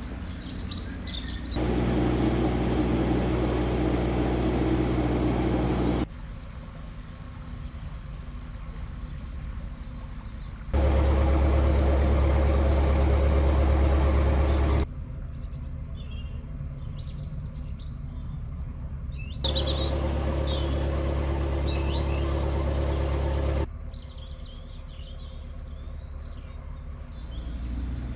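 Narrowboat engine running steadily while cruising. Its level jumps up abruptly three times for about four seconds each. In the quieter stretches between, small birds chirp.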